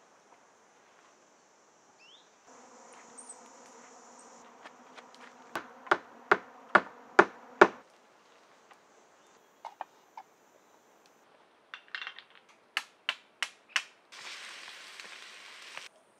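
Sharp wooden knocks in quick runs from work on a log platform. The loudest is a run of six at about two and a half a second, over the steady drone of a flying insect buzzing nearby. Two shorter runs of knocks follow, then about two seconds of rustling hiss near the end.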